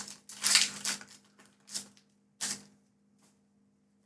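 Foil booster-pack wrapper crinkling and tearing open in a run of short crackly bursts, the last one about two and a half seconds in, then stopping.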